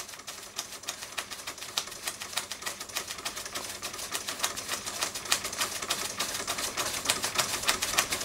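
Three Miller Junior Engineer SE-100 toy steam engines, one vertical, one horizontal and one beam engine, running together under steam: a rapid, uneven ticking from their moving parts that grows gradually louder.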